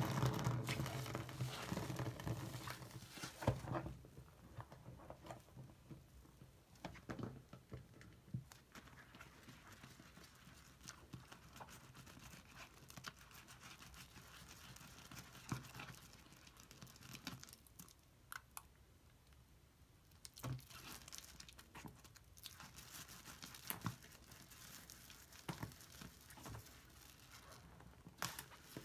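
Soap-soaked sponge squeezed and kneaded in a sink of thick lather: wet squelches and crackling foam. Louder pouring and splashing for the first few seconds.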